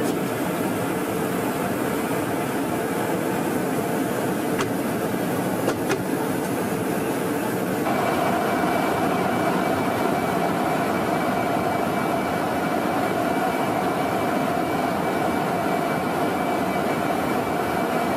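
Steady rushing drone of airflow and jet engines inside a tanker aircraft's boom operator station during aerial refuelling, with a couple of faint clicks near the middle. About eight seconds in the drone shifts, and a steady hum and a faint high tone join it.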